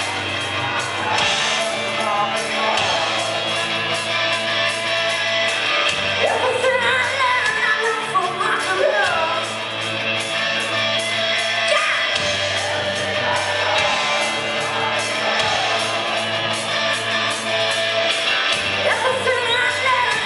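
Live rock band playing: electric guitars, bass and drums, with a woman singing in parts, heard from the audience in a large hall.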